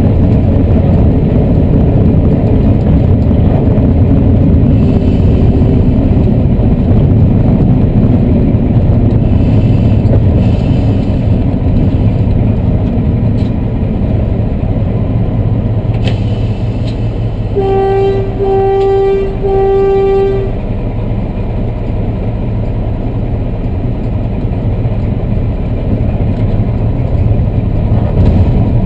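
Class 14 diesel-hydraulic locomotive's engine running under its bonnet, a loud, steady low rumble heard from the cab. About two-thirds of the way in, a locomotive horn sounds three close blasts on one note, and the engine runs a little quieter after them.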